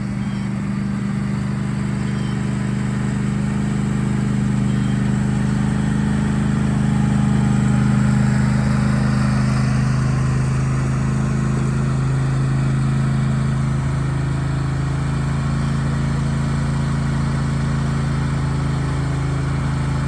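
Riding lawn mower engine running steadily, growing louder to about eight seconds in and then easing off a little.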